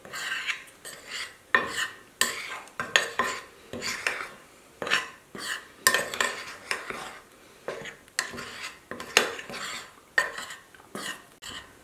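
A metal fork stirring seasoned dry flour in a ceramic baking dish, scraping against the dish in a quick, irregular series of strokes, about two a second.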